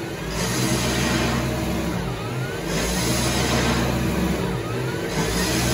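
Tormach 8L CNC lathe running, its tool taking repeated cuts in cold-rolled steel. A steady hum carries a pattern that repeats about every two and a half seconds, each time with a faint rising whine.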